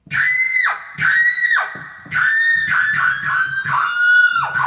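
Yamaha DGX-660 keyboard's 'Scream' sound effect (voice 547) played as a series of high screams, each ending in a sharp downward drop. The first few come about a second apart, and the later ones come faster and a little lower in pitch.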